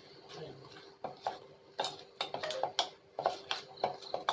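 A spoon stirring flour batter in a bowl, clinking and knocking against the sides in quick, irregular strokes that start about a second in.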